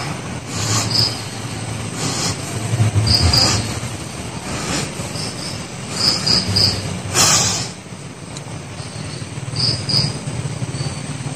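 Crickets chirping in short, high, repeated bursts in the night forest, over a low wavering drone, with a brief rustling burst about seven seconds in.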